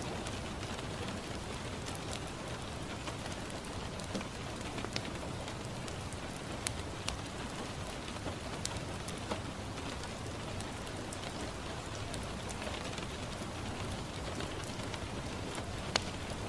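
Steady rain falling on a window, an even hiss, with a fireplace crackling: a few scattered sharp pops, the loudest near the end.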